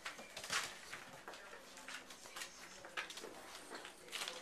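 Scattered light clicks and rustles of Boxer puppies scrabbling about on the floor.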